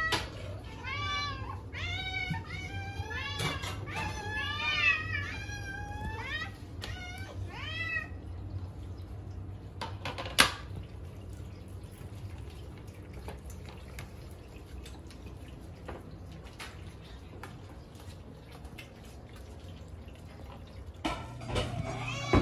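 Several hungry cats meowing over one another in high calls that rise and fall, for about eight seconds. A single sharp knock comes about ten seconds in, then only faint small ticks over a low steady hum while the cats eat wet food.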